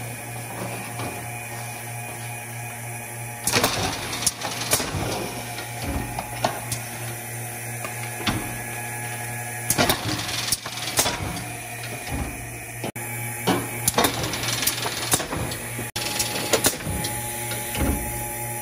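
Nordale end-load cartoner running in intermittent motion: a steady low motor hum with irregular sharp clacks and short bursts of noise as its mechanisms index and push cartons along.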